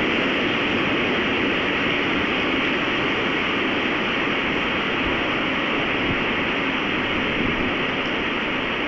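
Strong windstorm blowing steadily: a continuous rushing noise with no single gust or knock standing out.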